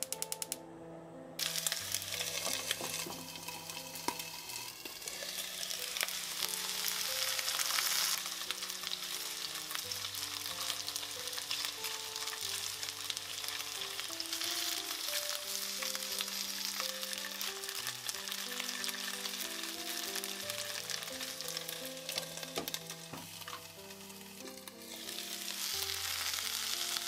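Potato-starch-coated chicken tenderloin and okra pieces sizzling as they pan-fry in a tablespoon of rice oil. The sizzle starts about a second and a half in, when the heat comes back on, and runs steadily, growing louder near the end.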